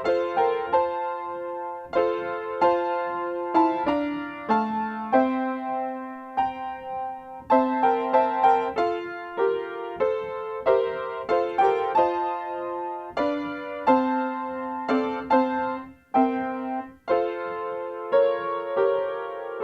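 Piano playing a slow, gentle instrumental piece, notes struck in a steady pattern with chords ringing out.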